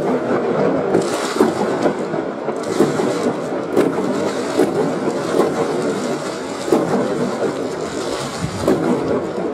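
Fireworks bursting, slowed to half speed: a continuous dense rumble and crackle from many shells, with a sharp bang right at the start and further bangs every second or so.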